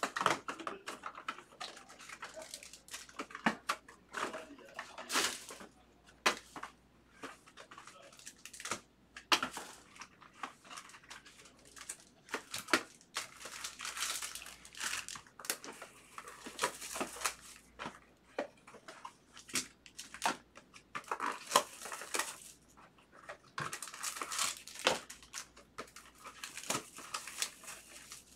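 Foil trading-card pack wrappers crinkling as they are handled and opened, with irregular crackles and small clicks and taps throughout.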